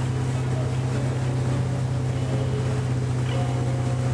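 Motorboat engine running steadily at towing speed, a constant low drone, with the rush of wind and water over it.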